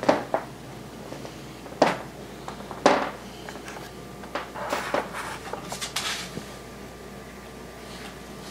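Soft rustling and bumping: three short rustles in the first three seconds, then a longer patch of rustling about four to six seconds in, over a quiet steady room hum.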